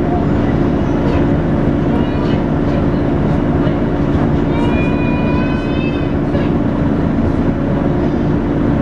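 Volvo B9TL double-decker bus running with its steady vacuum-cleaner-like 'hoover' whine. A higher whine sounds for a second or two about halfway through.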